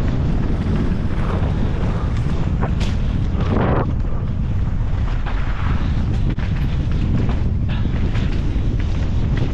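Wind buffeting the microphone on a mountain bike descending a trail at speed, mixed with the clatter of tyres and bike over rough ground, with a louder burst about three and a half seconds in.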